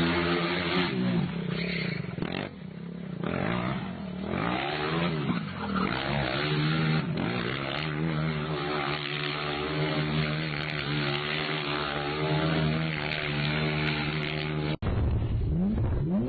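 Go-kart engine revving up and down, then held at high, steady revs while the kart spins its tyres in donuts. Near the end it cuts abruptly to a BMW E46 Touring's engine being revved.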